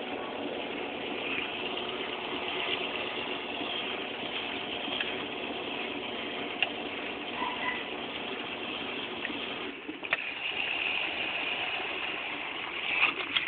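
Class 6 kg washing machine draining: the drain pump hums steadily as water gushes out at the end of the rinse drain. About ten seconds in the sound dips with a click and changes, and a few clicks come near the end.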